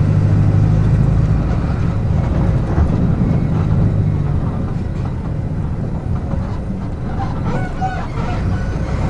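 Front-mounted diesel engine of a Mercedes-Benz OF-1722M coach, heard from on board. It runs steadily for the first four or five seconds, then eases off to a lower rumble. A few short high squeaks come near the end.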